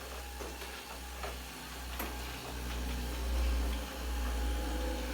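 ILife robot vacuum running on a tiled floor: a steady motor hum with a low rumble that swells a little past the middle, and a few light clicks and taps in the first couple of seconds.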